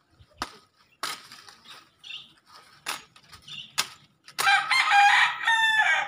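A rooster crows loud and long, starting about four and a half seconds in and falling in pitch at the end. Before it, a machete chops into a tree branch several times with sharp knocks.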